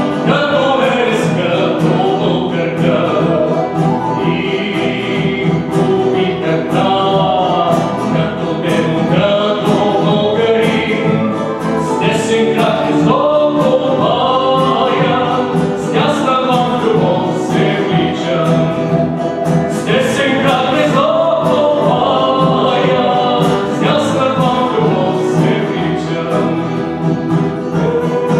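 A man singing a song live while strumming a nylon-string classical guitar, his voice carrying a gliding melody over steadily strummed chords.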